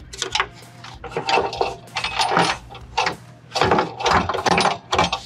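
Engine control module with a Pulsar module fitted being worked into its mounting bracket: a few clusters of hard clicks, knocks and rattles as the housings catch on the bracket and wiring.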